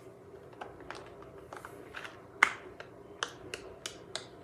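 Bubbles of a silicone pop-it fidget toy being pressed, giving a series of sharp little pops. They are scattered at first, with the loudest about two and a half seconds in, then come about three a second near the end.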